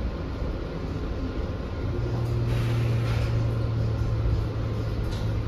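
Interior cabin noise of a 2023 New Flyer XE40 transit bus under way: a steady low road rumble, with a low hum coming in about two seconds in and a brief hiss soon after.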